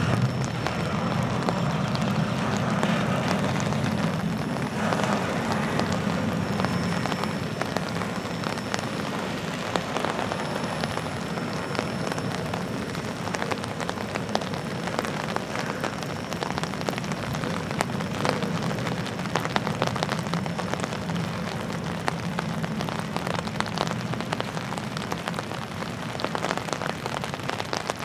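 Double-stack intermodal container cars rolling past: a steady rumble of steel wheels on rail with scattered clicks and clanks, growing gradually quieter as the end of the train nears.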